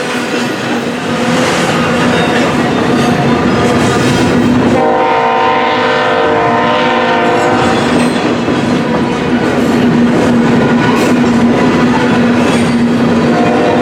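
Freight train running by with wheels clacking over the rail joints, and a diesel locomotive's horn sounding one chord held for about three seconds, starting about five seconds in. The horn starts again right at the end.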